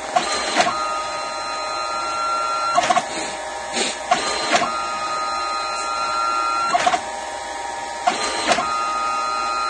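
Mitsubishi CP-K60DW dye-sublimation photo printer printing a 2x6 photo strip. It makes a steady mechanical whine in three passes about four seconds apart, each pass starting and ending with clicks: the print head's successive passes over the paper, one for each ribbon panel.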